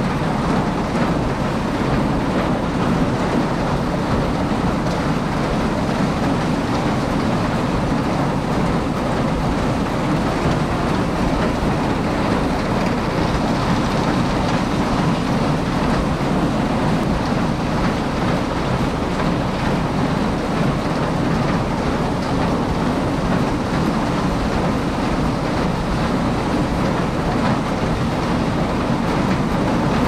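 Farm machinery running with a steady, continuous mechanical rattle.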